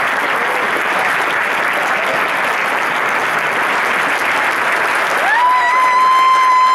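Theatre audience applauding steadily. Near the end, one person in the crowd lets out a long, high cheer that rises, holds, then drops off.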